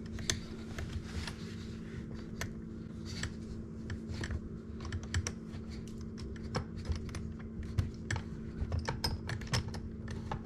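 Irregular light clicks and ticks as a fitting is turned by hand onto a dishwasher's plastic threaded water inlet. The tightening is kept slow because the plastic threads cross-thread easily.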